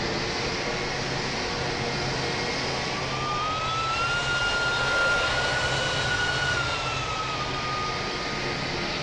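Airplane engines running with a steady rushing noise and a high whine. The whine rises in pitch about a third of the way in, holds, and eases back down near the end, with the sound loudest about halfway.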